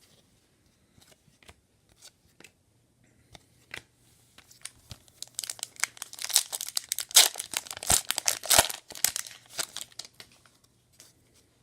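Trading card pack wrapper being torn open and crinkled, with light clicks of cards being handled before it. The crinkling is densest in the middle of the stretch.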